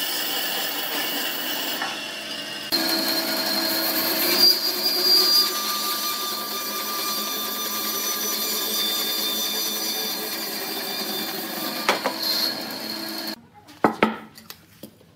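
Bandsaw running and cutting through a solid wooden cylinder, a steady machine noise with the blade whining through the wood. It stops near the end, followed by a couple of sharp knocks as the wooden piece is set down on the bench.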